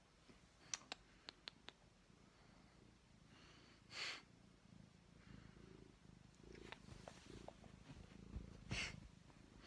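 A domestic cat purring faintly close to the microphone. A few sharp little clicks come about a second in, and two brief breathy rustles come at about four seconds and near the end.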